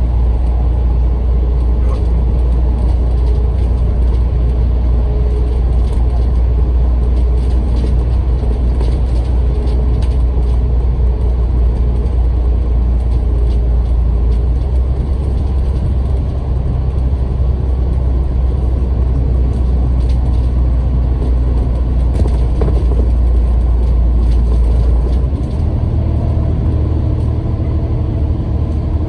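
Bus engine and road noise heard from inside the moving bus: a steady low rumble. Near the end the engine note shifts to a slightly higher drone.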